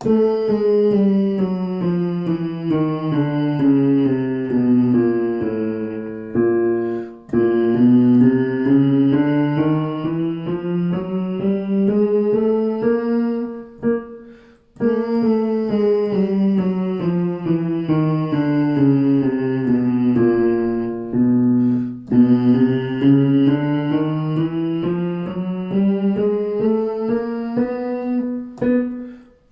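Piano playing a vocal warm-up exercise: four phrases of about seven seconds each, separated by short breaks. Each phrase is a run of notes stepping down or back up in pitch.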